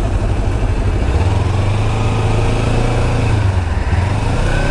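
Motorcycle engine running on the move, with a strong low rumble and an even rush of road and wind noise on the helmet microphone.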